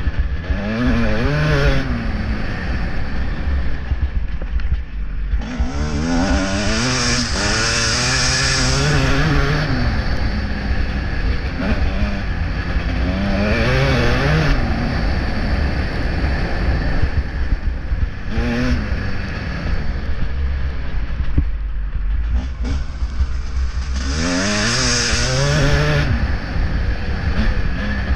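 Motocross bike's engine revving hard and repeatedly dropping back as the rider accelerates, shifts and rolls off on a dirt track, the pitch climbing in several long runs. Heavy wind rumble on the bike-mounted microphone underneath.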